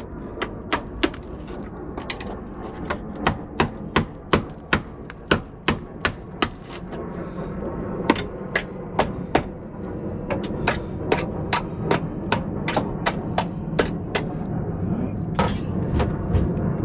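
Hammer blows striking bodywork, sharp and repeated in uneven runs of about two to three a second with short pauses between runs.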